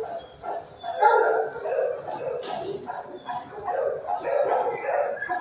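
Shelter dogs barking and yelping together in a concrete-block kennel: a continuous, overlapping din of several dogs with no break.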